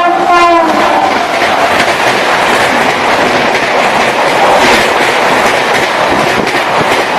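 Horn of a WAP-7 electric locomotive, sounding as it passes and dropping in pitch, ending under a second in. Then the Rajdhani's coaches rush past at high speed: a steady, loud rushing noise with wheels clattering over rail joints.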